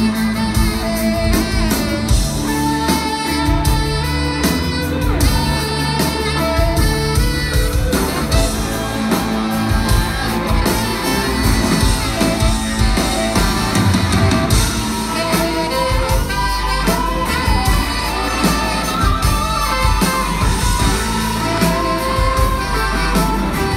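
A live rock band plays in a large hall, heard from the crowd: saxophone, electric guitar, bass guitar and drums, with a male lead vocal.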